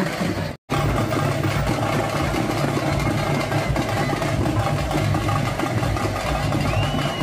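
A motor vehicle's engine idling steadily, with the sound cutting out completely for a moment about half a second in. A thin high tone rises and then holds near the end.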